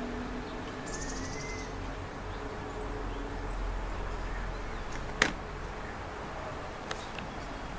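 Steady outdoor background noise with a faint hum, a brief high chirring about a second in, and a single sharp click about five seconds in, with a softer click near the end.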